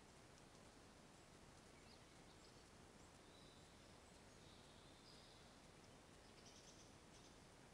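Near silence: the steady hiss of a trail camera's microphone, with a few faint, high bird chirps scattered through it.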